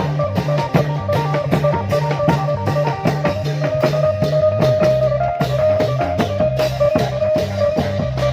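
Klong yao long-drum procession band playing lively Thai folk music: a steady fast drum beat under a plucked string melody and a moving bass line.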